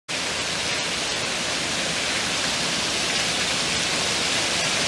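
Water pouring steadily in several streams from a ceiling and splashing into standing water on a flooded floor, the sign of a burst pipe above the ceiling.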